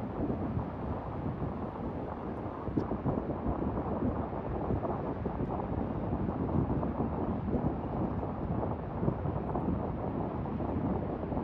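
Wind blowing across the microphone: an uneven low rushing noise that rises and falls slightly, with no distinct events.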